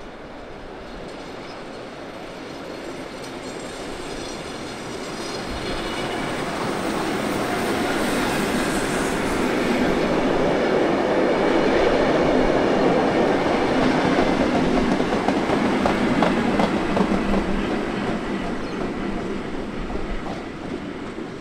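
A heritage Tait electric multiple unit passing through a station. The rumble of its wheels on the rails swells as it approaches, is loudest a little past halfway as the carriages go by with clickety-clack over the rail joints, then fades as it pulls away. A faint high whine is heard during the approach.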